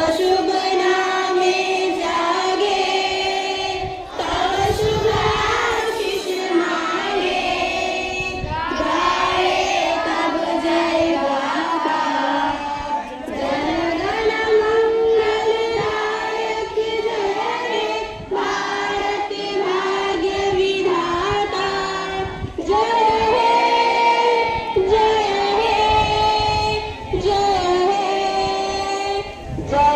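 A large group of schoolchildren singing together in unison, in phrases a few seconds long with short breaks between them.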